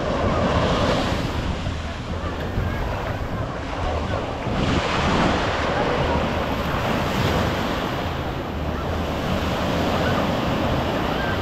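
Ocean surf breaking and washing up the beach, rising and falling wave by wave and loudest about five seconds in, with wind buffeting the microphone.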